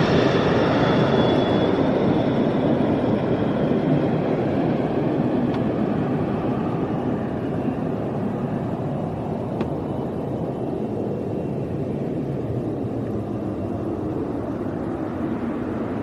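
Jet airplane flying past, a steady engine rumble with a faint high whine that slowly fades as the plane moves away toward the runway.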